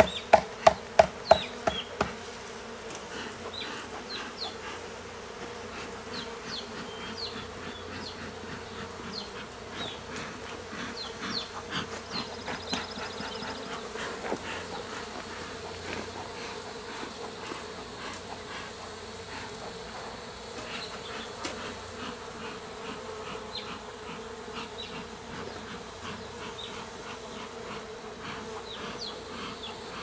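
A swarm of honey bees buzzing around a honey super as they are smoked off it, with individual bees droning close past. In the first two seconds there is a quick run of loud knocks, about three a second, that then stops.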